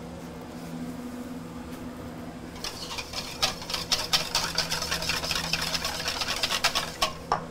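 Wire whisk beating heavy cream in a stainless steel mixing bowl: a fast, rattling run of clicks and scrapes as the wires hit the metal, starting about two and a half seconds in and stopping shortly before the end. Before it there is only a low steady hum.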